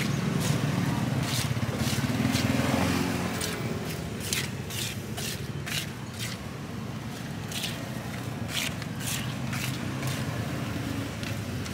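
Yellow plastic spatula scraping against a stone cobek mortar as cut fruit is tossed in thick rujak sauce: short wet scrapes in irregular strokes, about one or two a second, over a steady low rumble of traffic.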